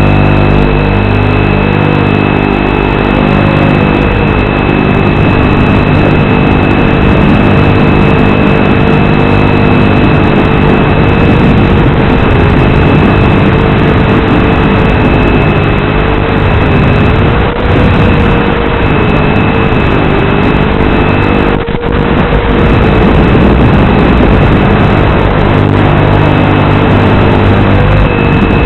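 Brushless motors and propellers of a ZMR-250 FPV quadcopter buzzing, picked up lo-fi through the onboard camera's audio over the analog video link. The pitch wavers up and down with throttle, a steady high whine sits over it, and the sound briefly drops out a little past the three-quarter mark.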